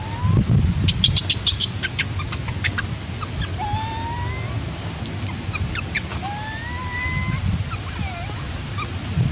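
Baby long-tailed macaque crying: thin rising calls, several spaced a few seconds apart. About a second in comes a quick run of sharp clicks, with a low rumble underneath throughout.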